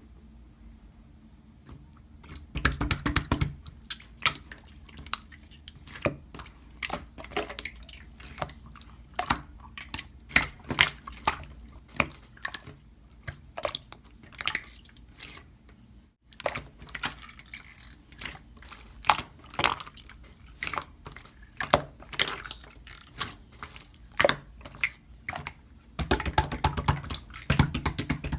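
Irregular sharp clicks and taps, a few a second, bunching into quicker runs around three seconds in and again near the end, with a momentary break about halfway through.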